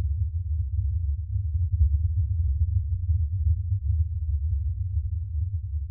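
A deep, steady drone with nothing else over it, part of the film's score and sound design.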